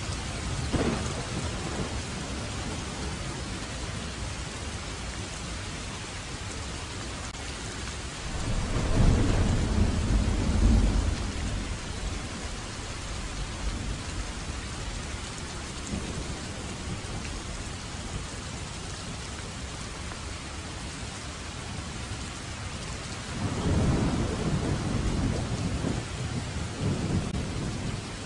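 Steady rain with rolls of thunder: a long low rumble about eight seconds in and another near the end.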